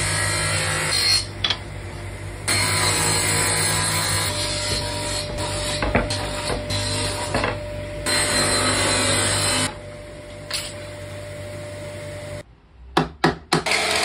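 Table saw running, its steady motor hum rising into a loud cutting noise while walnut strips are fed through the blade and dropping back between passes. Near the end there are a few sharp clicks, then a mitre saw starts up.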